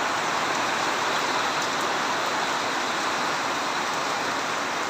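Heavy tropical rain falling in a steady downpour, an even hiss that holds at one level throughout.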